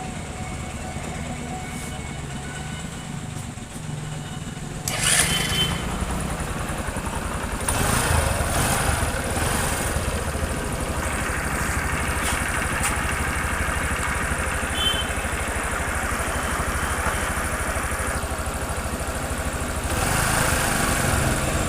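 Bajaj Discover 100 cc single-cylinder four-stroke engine running after a top-end rebuild (new cylinder and piston), test-run for its smoke and noise problem. It idles steadily, then gets louder at about five and eight seconds and again near the end.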